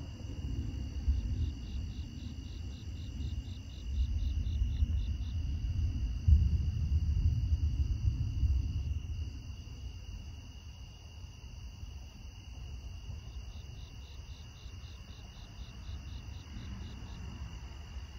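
Distant thunder rumbling low, swelling about four seconds in and dying away after about nine seconds, over a steady high chorus of night insects. A rapid pulsed insect call comes in twice.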